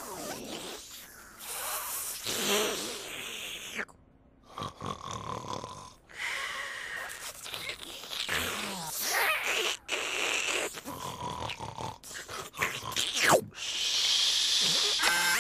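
Noo-Noo, the Teletubbies' blue vacuum-cleaner character, making a string of short snuffly cartoon noises broken by brief pauses, ending in a hissing vacuum suck.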